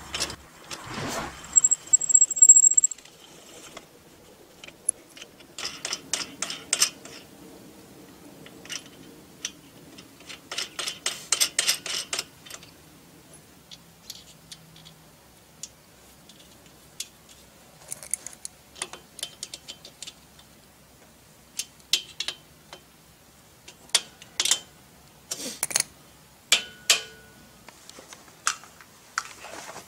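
Steel parts of a bandsaw mill rail clinking and rattling as they are handled and fitted together: scattered sharp metal clicks and short runs of quick clicks, with a brief high squeak near the start.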